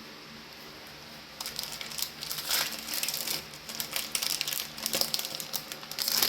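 Crinkling of a Magic: The Gathering booster pack's plastic-foil wrapper being handled. It starts about a second and a half in and goes on as quick, irregular crackles.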